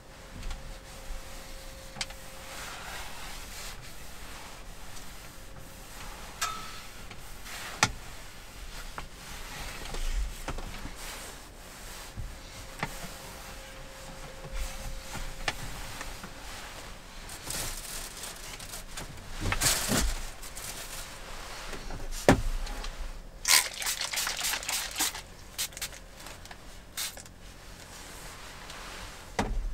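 A paper tissue being handled and folded on a wooden table: soft rustling and crinkling, louder about two-thirds of the way in, with a few sharp taps or clicks scattered through.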